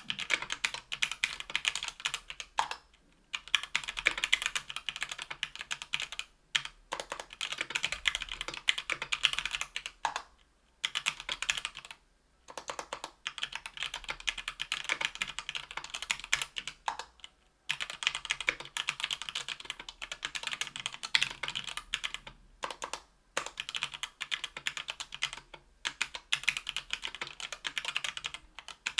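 Fast typing on a Tofu 60% aluminium keyboard with stock, unlubed JWK H1 78g linear switches on an aluminium plate under GMK keycaps: rapid key clacks in runs of a few seconds, broken by short pauses.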